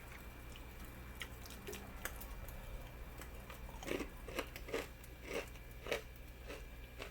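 Someone chewing a crunchy batter-fried oyster mushroom: faint crunches, coming about twice a second from about four seconds in.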